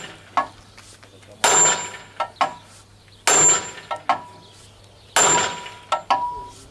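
Sledgehammer blows on a steel drift held against the drive pulley hub of a DON-1500B combine's feeder house: three heavy, ringing steel-on-steel strikes about two seconds apart, with lighter knocks between them.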